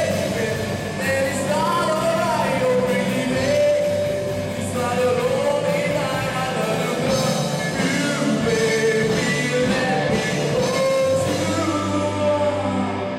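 A live rock band playing: a male lead singer sings into a microphone over electric guitars and a drum kit.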